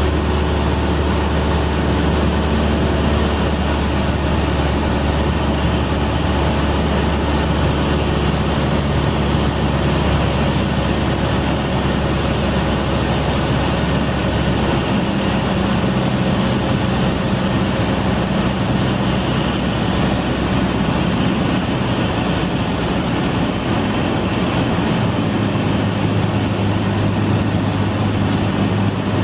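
Cabin drone of a Cessna 172 Skyhawk's four-cylinder piston engine and propeller in flight, heard inside the cockpit, steady under a constant hiss of wind noise. The engine note shifts about halfway through.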